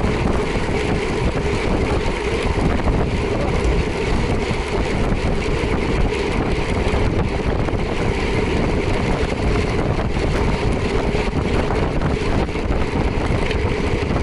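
Motorcycle riding at a steady speed: engine running evenly under a heavy rush of wind on the microphone.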